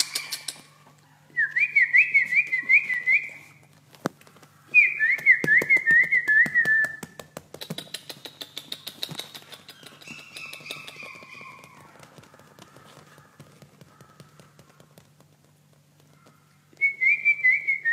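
Spitz puppy whining in high, warbling bursts, four in all, each about two seconds long, with light clicking between them and a steady low hum underneath.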